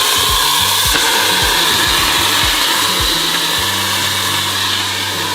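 Background music with a beat and a held, stepping bass line, over a steady loud rushing hiss.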